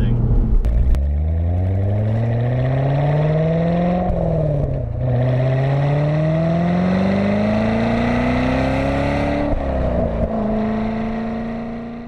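2014 Corvette Stingray's 6.2-litre V8 accelerating hard through its seven-speed manual. The engine pitch climbs, drops at an upshift about four seconds in and climbs again. It drops at a second shift about nine and a half seconds in, then holds steady and fades near the end. Heard from inside the cabin with the roof off.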